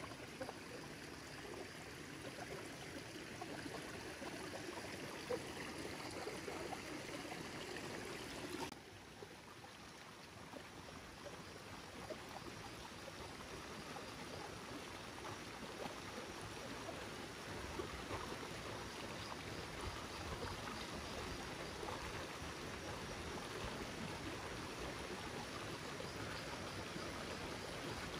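A small stream running and trickling over rocks, a steady rush of water that drops abruptly in level about nine seconds in.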